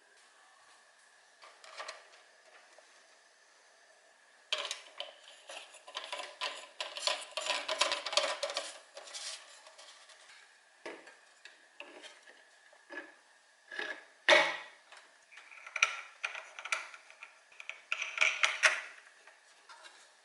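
Plastic parts of a Xiaomi electric fan being handled during cleaning: irregular clattering, scraping and knocking, with a dense run of clatter in the middle and a sharp knock about two-thirds of the way through.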